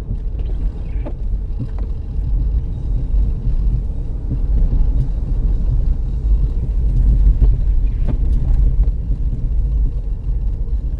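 Steady low rumble of a 2005 Dodge Caravan minivan driving, heard from inside the cabin.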